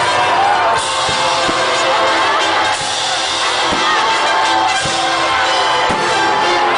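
Loud music with drums, over the noise of a crowd.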